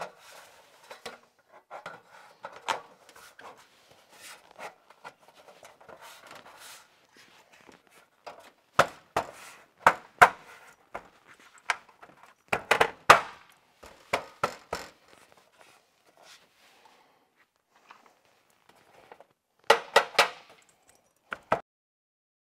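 Metal window trim being handled and fitted against steel siding: rubbing and scraping, with a run of sharp clicks and knocks in the middle and a few more near the end.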